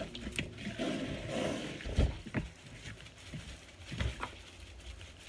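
Dry seasoning shaken from a large plastic shaker bottle over chicken wings: a gritty rattle with a few sharp knocks of the bottle.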